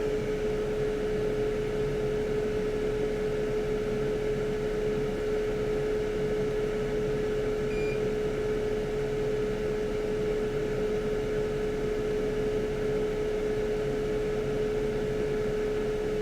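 Steady whirring of a small electric blower fan with one steady hum-like whine, unchanging throughout.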